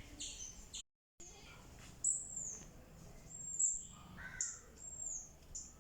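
Small birds chirping: short, high calls repeated every half second or so, with one lower call about four seconds in. The sound cuts out completely for a moment about a second in.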